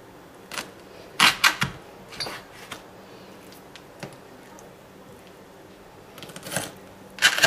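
Kitchen knife cutting through chicken wing joints, knocking sharply on a chopping board, in a few irregular clusters of knocks, the loudest about a second in and again near the end.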